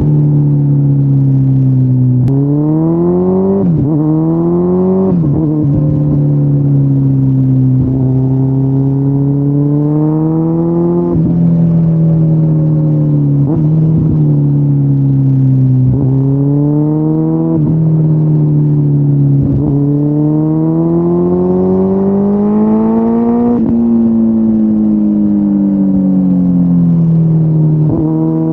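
2013 Kawasaki Ninja ZX-14R's inline-four engine through Yoshimura mufflers, heard from the saddle: the pitch climbs under acceleration and drops sharply at each upshift, with three quick shifts in a row a few seconds in. Later the pitch rises and falls more gently as the throttle is rolled on and off through the curves.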